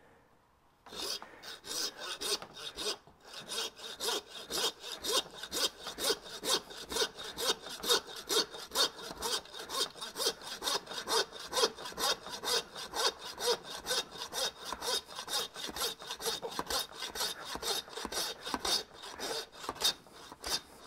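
Butcher's hand bone saw cutting down through the backbone of a beef short loin to free a T-bone steak, in steady back-and-forth strokes about three a second. It starts about a second in and pauses briefly near three seconds.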